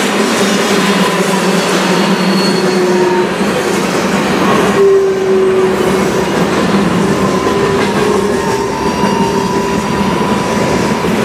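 Covered hopper cars of a freight train rolling past close by: a steady, loud rumble and rattle of steel wheels on the rail, with thin wavering squealing tones from the wheels running through it.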